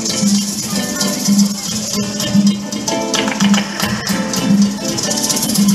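Music with plucked guitar and a shaker over a steady beat of about one pulse a second.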